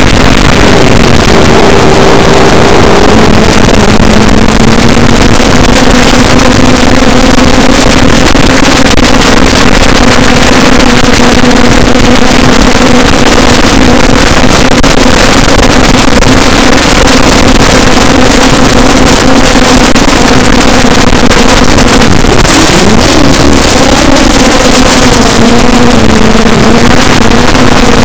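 Quadcopter's four EMAX MT2204 2300KV brushless motors and 5040 propellers giving a steady hum in two pitches, deep under a loud hiss. The hum's pitch dips and recovers briefly about three-quarters of the way through.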